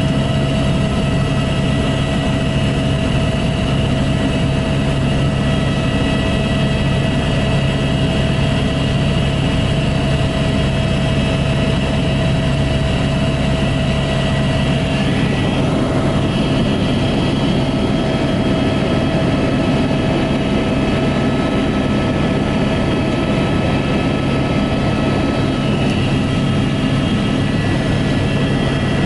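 Helicopter cabin noise in flight: a steady, loud drone of engine and rotor with several held tones, shifting slightly about halfway through.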